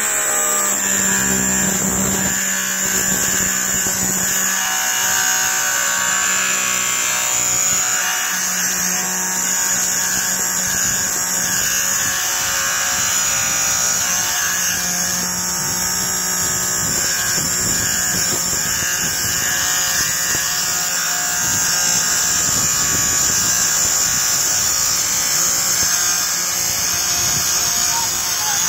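Compressed air blasting from an air-filter cleaning wand inside a large hay grinder air filter, blowing the dust out through the filter element: a loud, steady hiss with a low hum under it.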